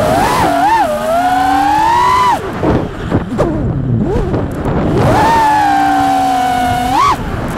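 5-inch FPV quadcopter's brushless motors whining, the pitch rising and falling with the throttle. The throttle is cut for a couple of seconds, dropping the whine into low, broken sputters before it climbs back to a steady high pitch, with one more quick rise near the end.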